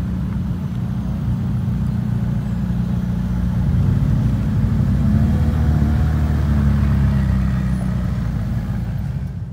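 McLaren convertible's twin-turbo V8 running at low revs as the car rolls slowly past, a steady low engine note that grows a little louder midway and fades near the end.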